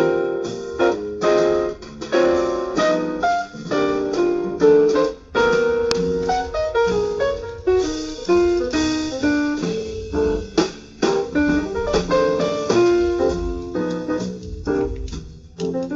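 Background jazz music led by piano, playing a busy run of notes.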